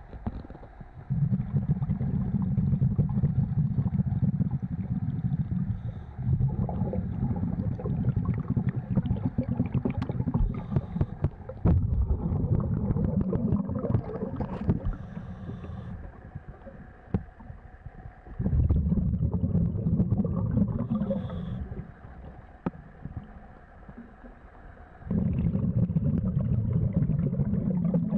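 Scuba diver's exhaled bubbles rumbling, recorded underwater, in about five long bursts of several seconds each with quieter pauses between breaths.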